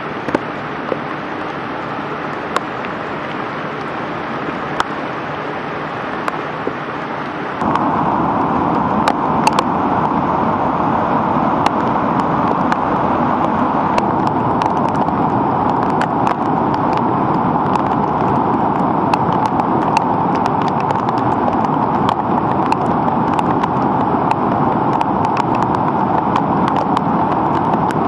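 Rain-swollen Horsepasture River in flood, its fast current rushing over rapids: a loud, steady rush of water that steps up louder about eight seconds in, with a few faint clicks scattered through it.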